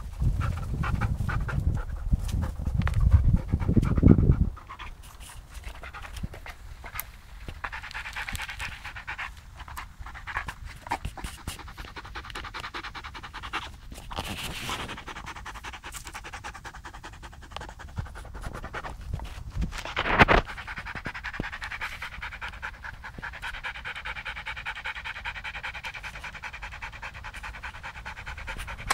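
A Briard panting fast and rhythmically with its tongue out, close to the microphone: a long-haired dog cooling itself in the heat. For the first four seconds a loud low rumble covers it, and there is one sharp loud noise about twenty seconds in.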